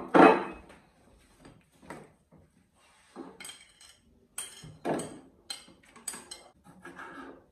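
Plates, cutlery and a serving bowl clinking and scraping as food is dished up, with a loud clatter right at the start and scattered lighter clinks and scrapes after.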